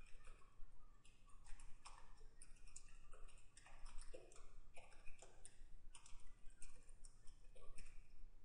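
Computer keyboard typing: quick, irregular key clicks, a few per second, with short pauses.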